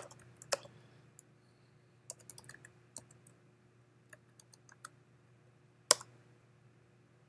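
Typing on a computer keyboard: scattered keystrokes, a quick run of several about two seconds in, and one louder keystroke about six seconds in.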